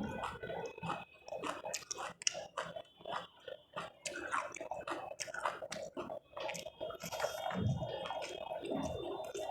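A person chewing a mouthful of food close to the microphone: a dense run of small, sharp, wet mouth clicks and smacks.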